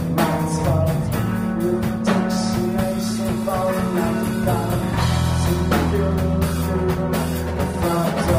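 Live rock band playing a song: strummed electric guitar over a steady drum beat, with a singer's voice.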